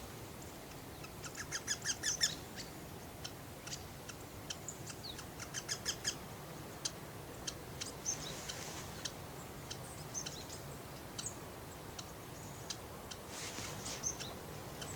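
Eurasian wryneck calling: quick runs of repeated, evenly spaced notes, one about a second in and another around the middle, with scattered short high chirps between.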